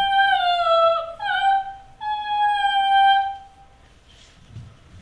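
A woman's high, wordless singing voice holding three long notes in a row, each drifting slightly down in pitch; it stops a little past three seconds in.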